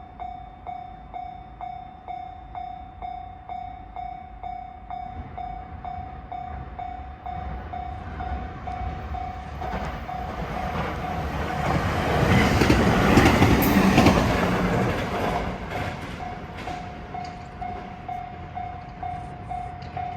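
Japanese level-crossing warning bell ringing in an even beat of about two strokes a second. A train passes through the crossing: its rumble builds from about 8 seconds in, is loudest around 12 to 14 seconds in and half drowns the bell, then fades. The bell is heard clearly again near the end.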